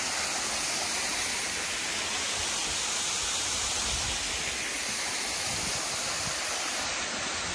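Steady rush of a small waterfall pouring into a rock pool.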